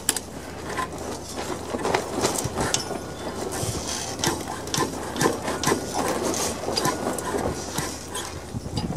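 Irregular clicks and knocks of a Briggs & Stratton engine's flywheel and parts as it is rocked back and forth by hand to work it past a point where it jams. The engine seizes partway through its turn, which the owner thinks is a worn or flattened camshaft lobe.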